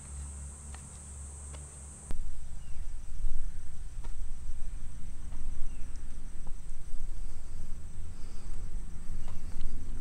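Steady high insect trill, crickets or cicadas, in the woods. About two seconds in, a louder low rumbling sets in and covers much of it, with a few scattered knocks from climbing a metal ladder into a rope net.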